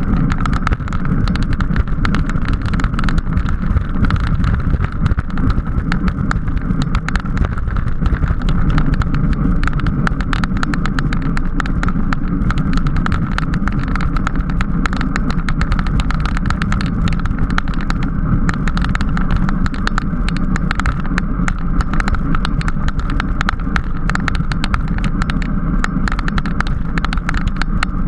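Steady wind rush and road noise from a bicycle ridden at speed in a criterium race, with a constant patter of small clicks and rattles.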